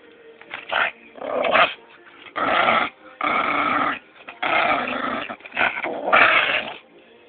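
Maltese puppy growling in play while tugging at a toy, a string of about seven rough growls, each under a second long.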